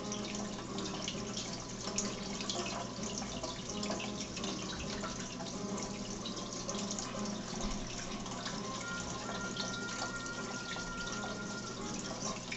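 Aquarium water trickling and splashing steadily, typical of a filter's outflow falling into the tank, with a low steady hum under it.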